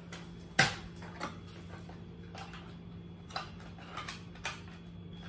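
Plastic clicks and knocks from handling an airsoft electric rifle while its battery is pushed into place: one sharp click about half a second in, then scattered lighter clicks.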